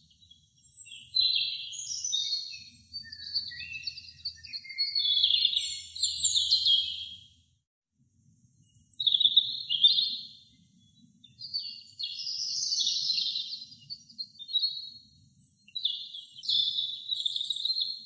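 European robin singing: a run of high, thin warbling phrases, each a second or two long and jumping in pitch, with short pauses between them and one longer break about halfway through.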